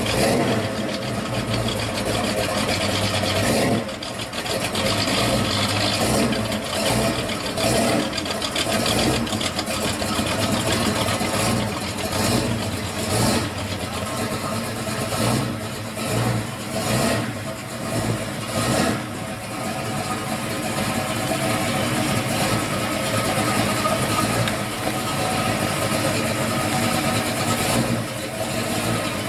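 1968 Dodge Dart GTS's V8 running at low speed as the car creeps along, with a few short revs around the middle.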